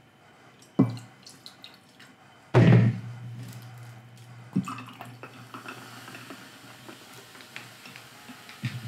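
Drinks poured into a glass tumbler of ice: a knock about a second in, a louder pour and clatter near three seconds in, then small clinks over a faint steady hum.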